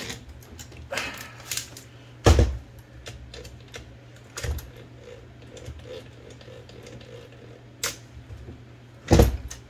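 Mechanical clicks and clacks from an Olivetti Linea 98 typewriter's carriage mechanism being worked by hand: two loud, sharp clacks, about two seconds in and near the end, with lighter clicks between. It is not the sound of the carriage brake engaging.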